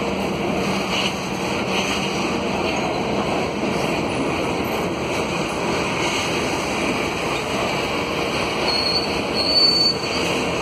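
Freight train of grain hopper wagons rolling slowly past on the rails, a steady rumble of wheels and running gear. A brief high-pitched wheel squeal about nine seconds in.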